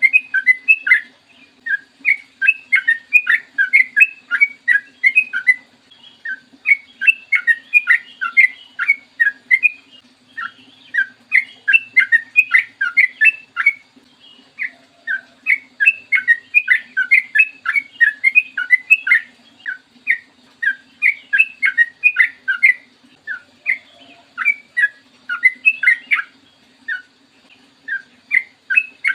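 Yellow-vented bulbul (trucukan) singing long, rapid runs of short bubbling notes. The phrases last several seconds, broken by brief pauses. A faint steady hum runs underneath.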